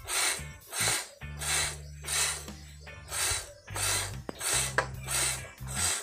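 Anglo-Nubian goat being milked by hand: streams of milk squirting into a white plastic bucket in a steady rhythm, about ten squirts over these few seconds, with background music underneath.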